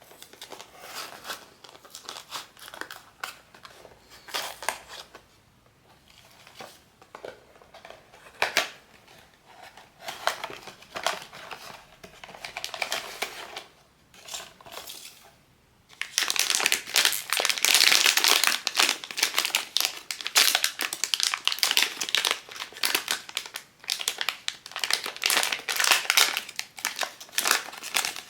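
Blind-box packaging being handled and opened by hand: scattered crinkles and rustles at first, then, a little past halfway, a long stretch of loud, dense crinkling.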